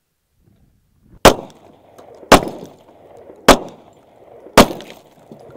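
Four gunshots about a second apart, each a sharp crack trailing off in a short echo.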